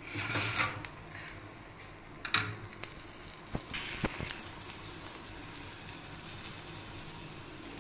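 Steady low kitchen hum with a few short, light knocks and clicks, a spatula working thin flour-batter flatbreads on an iron tawa.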